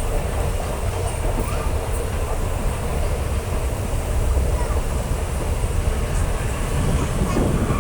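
Moving passenger train heard from on board: a steady, loud rumble of wheels on the track and wind.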